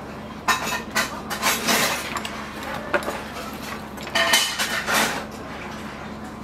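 Small metal tools and multimeter test leads clinking and clattering on a cluttered electronics repair bench, in a string of sharp knocks and rattles over a steady low hum.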